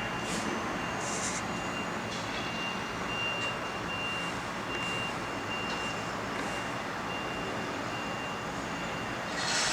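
Steady vehicle and street-traffic noise with a faint repeating high beep and a few short hisses.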